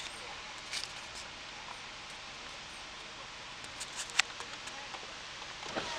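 Low steady hiss of a quiet car cabin, with a few faint clicks and one sharp tick about four seconds in.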